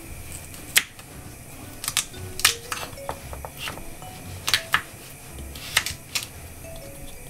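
Chef's knife slicing a raw carrot lengthwise into sticks, the blade knocking sharply on a bamboo cutting board in irregular strokes, some in quick pairs.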